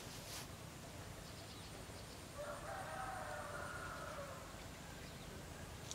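A rooster crowing once, faint, a single call of about two seconds starting a little over two seconds in.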